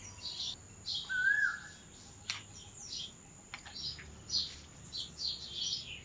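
Birds chirping: a string of short, high chirps repeating about every half second, with one lower whistled note about a second in. A couple of faint sharp clicks sound in between.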